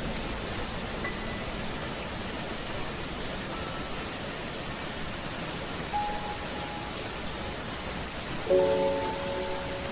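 Steady rain falling, with a few soft, sustained musical notes sounding one at a time. A chord of several notes rings out near the end and is the loudest moment.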